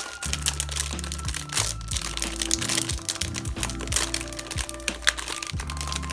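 Background music with a deep bass line that shifts every second or so, and sharp percussive clicks over it.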